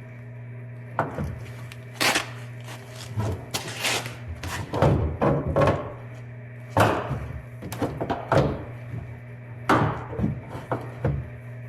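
Irregular knocks and thunks, about a dozen, some in quick clusters, as a car's rear bumper is pushed and knocked into place. A steady low hum runs underneath.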